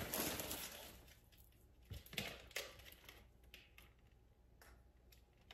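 Plastic packaging crinkling as it is handled and opened, fading after about a second into a few faint scattered clicks and rustles.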